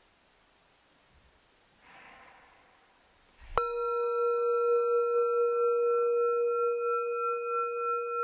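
Faint hiss, then about three and a half seconds in a singing bowl is struck once and rings on. It gives a low main tone with higher overtones and a slow, pulsing wobble.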